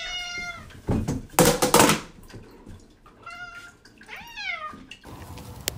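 Cats meowing at feeding time: a few short calls, the last one falling in pitch, with a loud noisy burst about a second and a half in.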